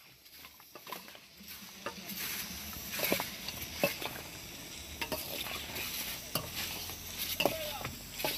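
A metal spoon stirring and tossing raw chicken pieces and chopped seasoning in a stainless steel bowl, with irregular clinks and scrapes of the spoon against the bowl. It starts quietly and gets busier from about two seconds in.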